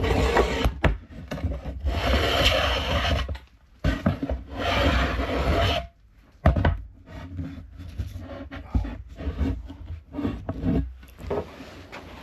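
Smoothing plane shaving pressure-treated softwood, rounding the square edges of a handle: three long rasping strokes in the first half, then shorter, quieter scraping strokes.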